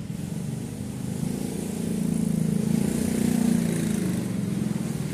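A small engine drones steadily, growing louder over about three seconds and then fading, like a motor passing by.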